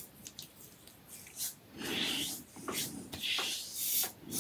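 Blackbird Titanium safety razor with a Gillette Silver Blue blade scraping through lathered stubble on the cheek on the second pass, in a few short strokes starting about halfway.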